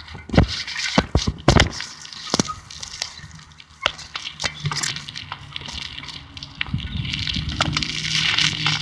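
Faint steady alarm tone from a System Sensor MA/SS-24 fire alarm horn set to 800 Hz steady, heard under a series of sharp clicks and knocks in the first few seconds. A rushing noise swells near the end.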